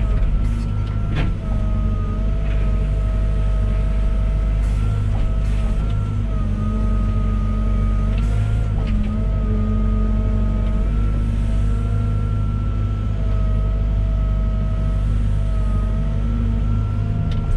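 Volvo EWR150E wheeled excavator's diesel engine running steadily under working load, with a high whine that wavers slightly in pitch and a few light knocks.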